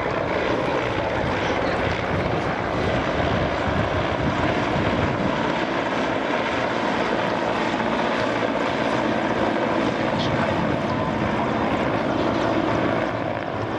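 Mil Mi-8 military helicopter flying low past, its main rotor and twin turboshaft engines running with a steady, loud noise.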